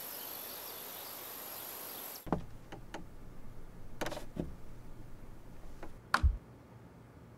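A steady hiss that cuts off about two seconds in, giving way to quiet room tone with scattered small clicks and soft knocks of handling. About six seconds in comes a sharp click and low thump as a jack plug is pushed into an acoustic guitar's end-pin output jack.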